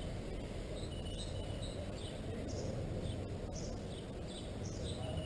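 Faint outdoor ambience picked up by a GoPro Hero 2's built-in microphone: a steady low rumble with short, scattered high bird chirps.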